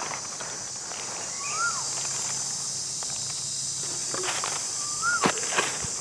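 Steady high-pitched drone of insects, with two short whistled calls that rise then fall, about four seconds apart, and a few sharp clicks near the end.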